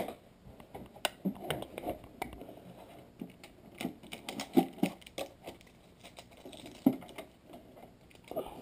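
Packaging being handled while unboxing: irregular crinkling and clicking of styrofoam packing, with a few light knocks, the loudest about four and a half and seven seconds in.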